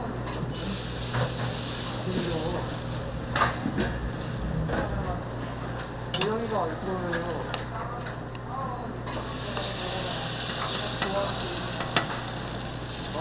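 Korean street-toast fillings frying on a flat griddle, sizzling steadily, with a few sharp clicks of a metal utensil.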